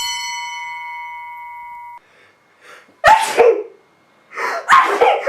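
A bell-like ding rings and slowly fades, then cuts off abruptly about two seconds in. About a second later a person gives a loud sneeze, and another loud round of sneezing starts near the end.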